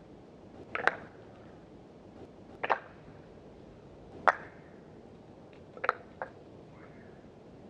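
Wooden kendama ball knocking sharply against the wooden ken, four times at intervals of about a second and a half, the last a quick double knock. This is the ball being pulled up and landed on the edge of the big cup for the bird trick.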